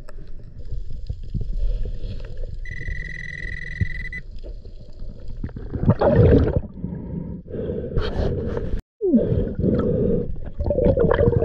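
Underwater noise picked up through an action-camera housing: a steady muffled rumble with louder bursts of rushing, churning water about six and eight seconds in as gloved hands fan the sand. A steady high electronic beep sounds for about a second and a half a few seconds in, and the sound cuts out briefly near nine seconds.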